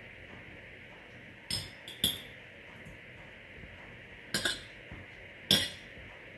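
Metal fork clinking against a ceramic plate as canned mackerel is picked apart, in a few sharp taps: a couple about a second and a half in, a double tap past four seconds, and the loudest near the end.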